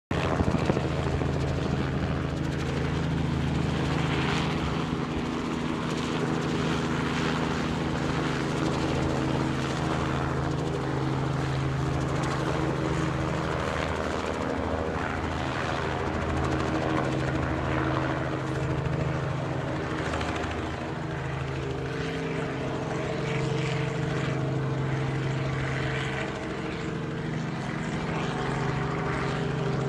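News helicopter flying overhead: a steady rotor and engine drone with a low hum, holding at a fairly even level.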